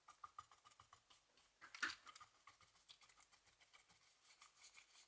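Faint dabbing and brushing of a paintbrush laying gesso and acrylic paint over a textured fabric-and-lace journal cover: many small quick taps and rustles, with one louder bristly scrape about two seconds in.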